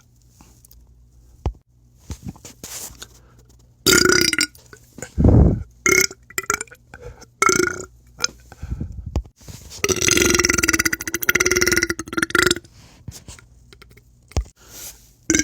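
Deep burps brought up from drinking beer: several short burps starting about four seconds in, then one long drawn-out burp around ten seconds in.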